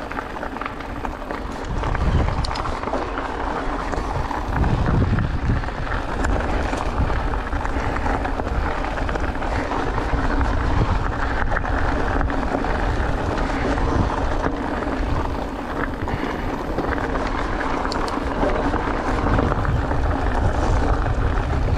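Mountain bike rolling along a rocky dirt singletrack, with steady tyre noise on loose gravel and the bike rattling over stones. Wind rumbles on the microphone throughout.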